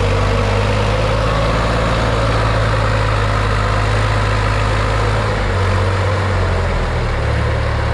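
Sonalika tractor's diesel engine running steadily while it pulls a trolley loaded with earth, its low note shifting slightly about five seconds in.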